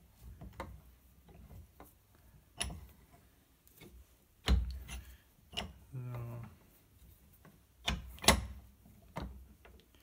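Scattered sharp clicks and knocks as Victorinox knife scales are pressed onto the pocketknife's rivets and the knife is worked in a towel-padded vise. The sharpest click comes a little after eight seconds in.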